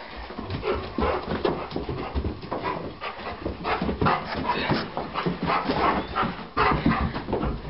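A Goldendoodle whimpering and panting in irregular short bursts.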